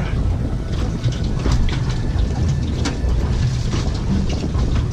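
Wind buffeting the microphone on a small fishing boat: a steady low rumble, with scattered knocks and taps.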